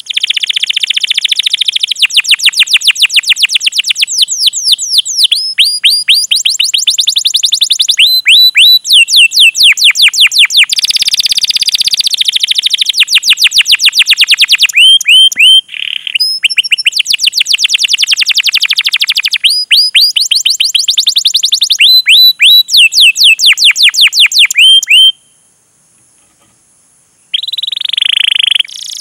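Domestic canary singing a long, fast song: rapid runs of repeated chirps and trills, many notes a second. It breaks off for about two seconds near the end, then starts again.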